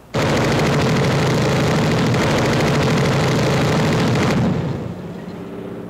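Sustained rapid machine-gun fire, a dense rattle that starts abruptly and cuts off after about four and a half seconds. It gives way to a steady aircraft engine drone.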